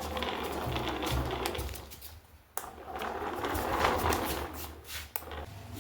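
Small DC motor of a homemade cardboard car whirring in two spells, cutting out briefly about two seconds in and stopping again about five seconds in.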